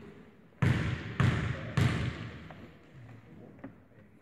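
A basketball bounced three times on a hardwood gym floor, about half a second apart, each bounce echoing through the gym: a player dribbling at the free-throw line before shooting.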